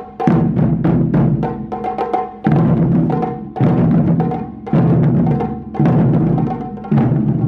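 Japanese taiko drums (wadaiko) playing: deep strokes that land about once a second, with quick, lighter strokes filling the gaps between them.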